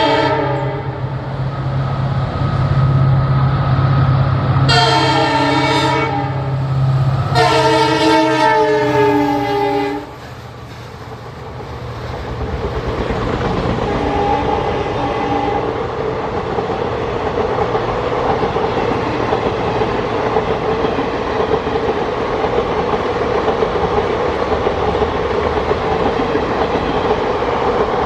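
Indian Railways train horns sounding several blasts: one falling in pitch right at the start, two long blasts about five and seven seconds in, and a short fainter one near fifteen seconds. After a sudden drop about ten seconds in, the steady rumble and wheel clatter of a passing train builds and runs on.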